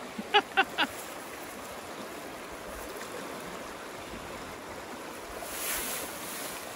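Steady rush of a fast, shallow creek running over rocks. There are a few short voice sounds near the start, and a brief louder splash about six seconds in as the cod is lifted out of the water.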